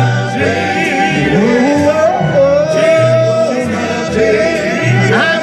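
Male R&B vocal group singing live over backing music, with a bass line repeating in short notes beneath the voices.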